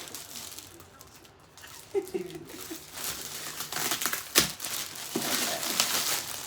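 Packaging crinkling and tearing as the mystery box is opened and unwrapped, with one sharp snap about four seconds in.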